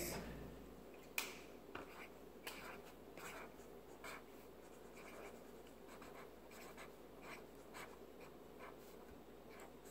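Felt-tip marker drawing on a notebook page: faint, scratchy strokes one after another, with a sharper click about a second in.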